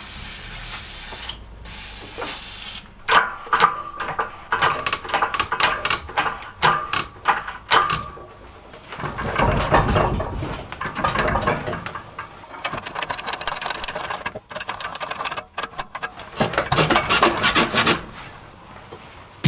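A short hiss of WD-40 aerosol spray, then metallic clicking, squeaking and rattling from the engine hoist's load leveler and its chains as it is worked by hand.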